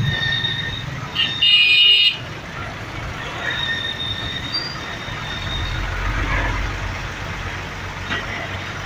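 Road traffic in a jam, with engines running and a high, thin, steady squeal. About a second in there is one loud vehicle horn blast lasting under a second. A low engine rumble swells and fades in the second half.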